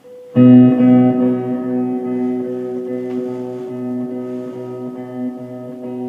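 Instrumental music: a chord held steady for several seconds, starting about half a second in, over a low note that pulses about three times a second.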